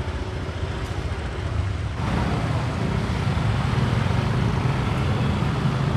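Street traffic: motorbike and car engines running close by, as a steady hum that becomes louder and deeper about two seconds in.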